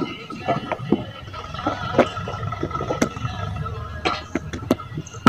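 Bricks knocking and clinking together as they are picked up and set down by hand: a string of short, sharp, irregular knocks, a few each second.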